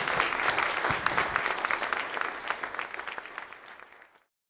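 Audience applauding, dying away and cutting off abruptly about four seconds in.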